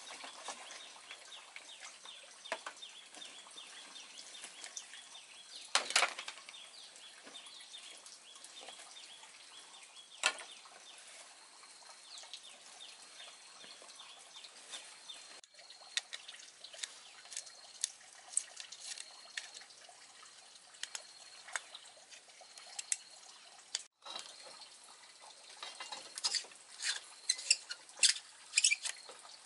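Handling noises: a canvas bag rustling and things knocking on a bamboo floor as the bag is unpacked, then a run of sharp plastic clicks near the end as a bulb and socket are fitted to a lamp shade.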